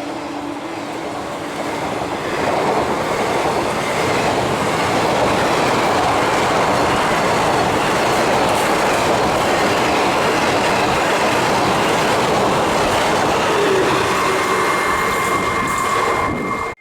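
Express train hauled by a WAP-5 electric locomotive passing at speed: a loud, steady rush of wheels on rail with rhythmic clatter, growing louder about two seconds in. Faint thin squeals come through in the last few seconds before the sound cuts off suddenly.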